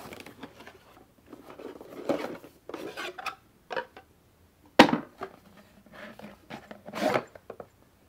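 Cardboard packaging rustling and plastic parts clattering as a box is opened and a plastic mounting stand is taken out, with one sharp knock a little before halfway through.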